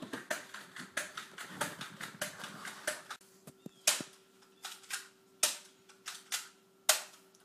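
A rapid, irregular run of sharp clicks and taps, sparser and louder after about three seconds, over a faint steady hum.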